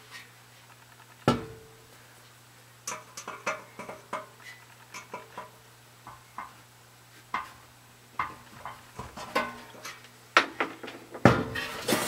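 Sheet-metal blower housing of an RV furnace being handled and pulled apart: scattered clicks and clanks, some with a short metallic ring, busier and louder near the end, over a steady low hum.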